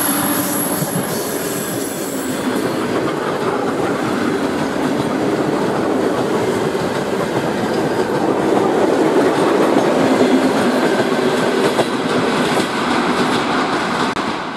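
ER9M electric multiple unit passing close by, its wheels rolling and clattering over the rails in a loud, continuous rumble. A high wheel squeal fades out in the first second.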